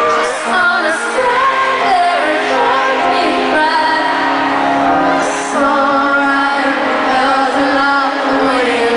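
A woman sings live into a handheld microphone over band backing with a steady held low note, recorded from the audience at a concert.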